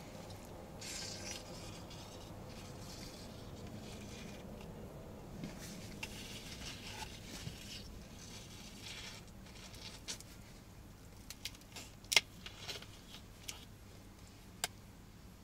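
Gas hissing out of a shaken plastic bottle of kvass as its screw cap is eased open bit by bit, in several short spells of fizz. Near the end come a few sharp clicks and crackles of the cap and plastic, the loudest about twelve seconds in.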